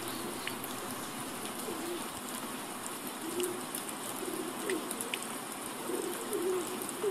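Pigeons cooing, a series of short wavering coos repeating from about two seconds in over a steady background hiss, all done as a human vocal imitation.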